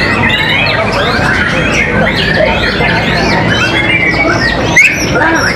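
White-rumped shamas singing, many birds at once: a dense, unbroken tangle of quick rising and falling whistles and chirps. A single sharp click comes a little before the end.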